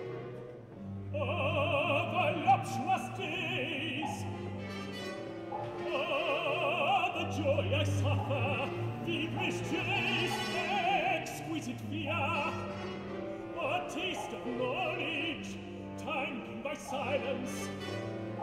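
A male opera singer sings with a wide vibrato, in several phrases broken by short pauses, over a soft, sustained orchestral accompaniment.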